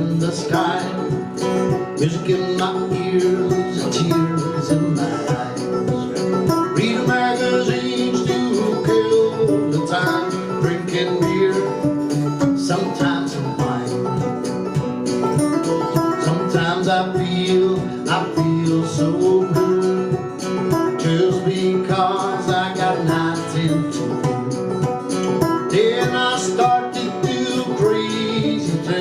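A band playing an instrumental passage of a country-style song, led by plucked string instruments such as guitar with a steady picked rhythm.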